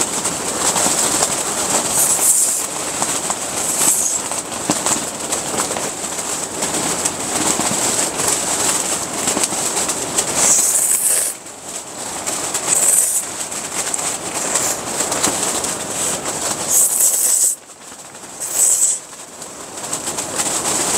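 Strong gale buffeting an Octagon Vanta hub tent, heard from inside: a loud rushing noise that surges and eases with the gusts and drops off briefly twice.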